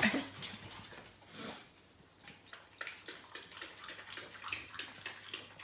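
Quiet, rhythmic sounds from a puppy's mouth, about three a second, starting about three seconds in.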